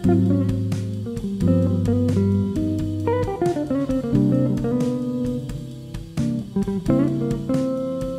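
Background music of plucked guitar over a bass line, in a relaxed jazzy style.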